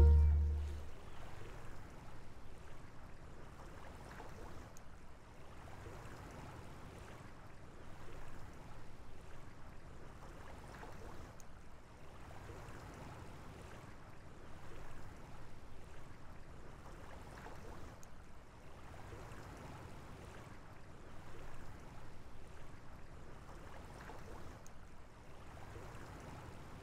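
The closing music's last chord dies away in the first second, leaving faint water lapping that swells gently every few seconds.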